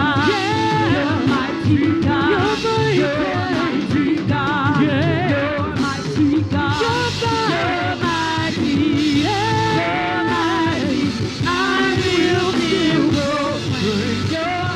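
Live gospel worship music: several singers holding wavering, vibrato notes over a band with bass and a drum kit playing a tom-heavy groove. The toms are on freshly fitted Evans heads.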